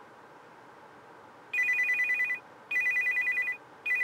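Phone ringing with a two-tone trilling electronic ring: three rings of just under a second each, starting about a second and a half in, over faint steady hiss.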